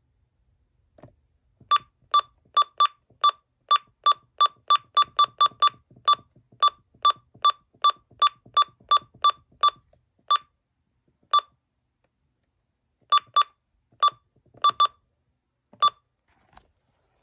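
Keypad beeps from a Uniden weather alert radio: a short, high electronic beep with each button press while its clock time is being stepped. The beeps come in a quick run of about two to three a second for most of the first ten seconds, then a few scattered beeps and one pair.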